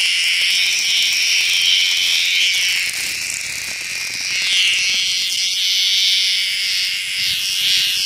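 Cicadas buzzing loudly: a steady, high-pitched drone that wavers up and down, dipping slightly about three to four seconds in.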